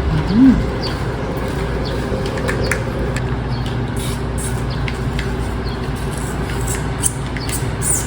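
Steady low hum of an engine running at idle, with faint small clicks and rustles over it.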